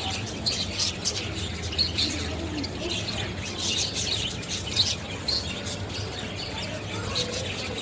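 Birds chirping: short high chirps come scattered throughout, over a steady low rumble.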